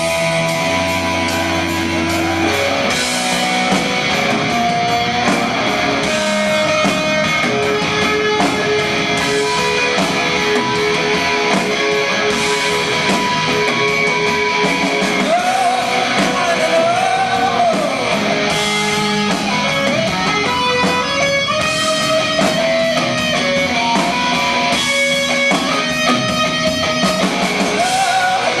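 Rock band playing live, with guitar to the fore.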